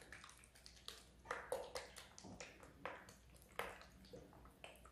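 Faint, irregular clicks and ticks as a plastic bottle of bleach is squeezed to squirt liquid over wadded cloth in a plastic tub.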